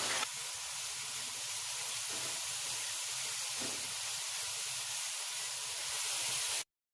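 Food frying in hot oil in a frying pan, a steady sizzle that cuts off suddenly near the end.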